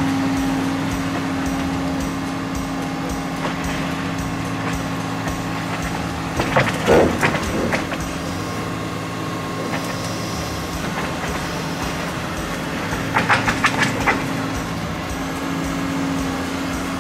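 Caterpillar excavator's diesel engine running steadily while it lowers a 42-inch HDPE liner pipe into a corrugated metal culvert. Two short bursts of rattling come about six and a half seconds in and again about thirteen seconds in.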